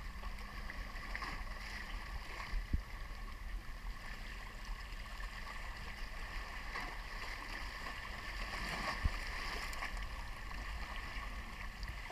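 Sea water lapping and washing against the rocks of a breakwater, a steady quiet sloshing with a low rumble underneath and a few faint clicks.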